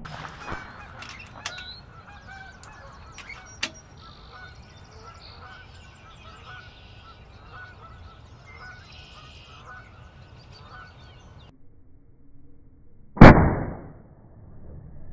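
A single shot from a PCP air rifle about 13 seconds in: a sharp crack with a short tail, by far the loudest sound. Before it come a few sharp clicks and repeated honking bird calls in the background.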